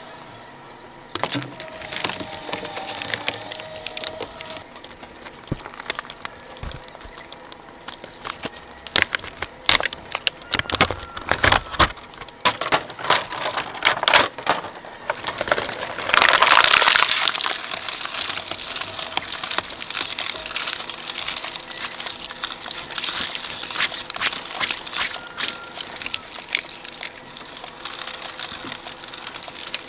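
A shredder cracking and crunching through plastic dinosaur toys: an irregular run of sharp cracks and crackles, loudest in a dense burst about halfway through.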